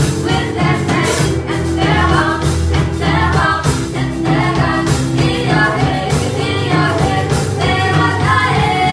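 Small live rock band playing with female singing over drum kit, guitar and bass.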